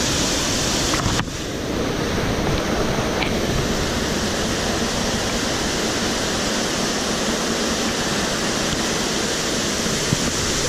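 Steady rushing of a mountain stream close to the microphone, an even hiss of running water, dipping briefly about a second in.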